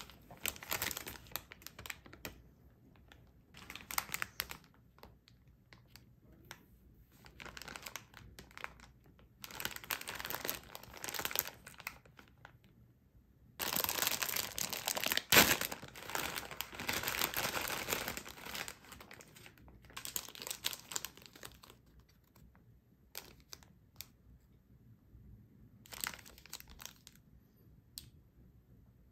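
Plastic snack wrappers crinkling in short bursts as they are handled. About fourteen seconds in, a bag of Country Ma'am cookies is torn open, with a sharp snap and several seconds of loud crinkling.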